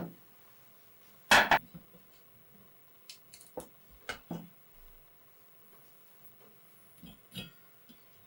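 Metal tool and part sounds from taking a pedal car's wheels off: one short loud bang about a second and a half in, then a few scattered light clinks and taps.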